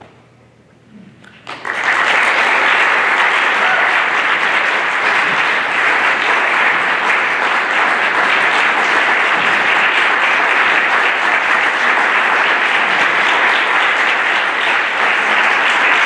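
Audience applauding, starting suddenly about a second and a half in and going on steadily.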